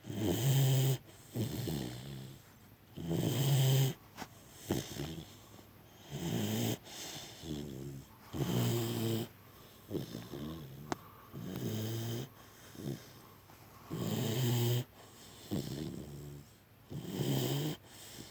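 Loud, rasping snoring in a steady rhythm: a long buzzing snore every two to three seconds, with shorter, softer breaths between.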